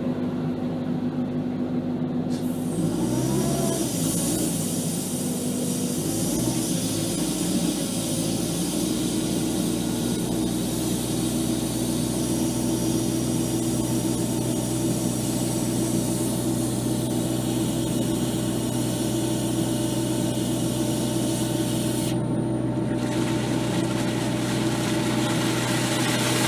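Air compressor engine running steadily with a hiss of compressed air, driving air down the well to airlift sediment out of it. Right at the end, water and debris start to blast out of the wellhead.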